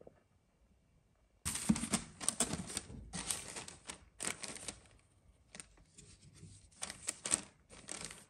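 Paper rustling and crinkling in a run of short bursts as a folded paper card and the tissue paper under it are handled. It starts suddenly about a second and a half in and is loudest in the first few seconds.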